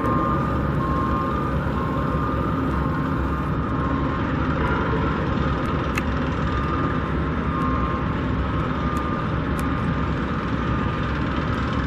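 Steady rumble of construction-site machinery and traffic, with a faint high beeping that comes and goes.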